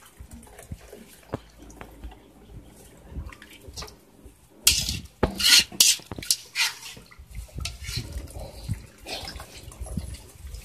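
A metal mesh strainer and spoon scooping food out of a pot of hot water, with clinks and scrapes against the metal pot, splashing and water dripping back into the pot. The clatter is loudest and busiest from about five to seven seconds in.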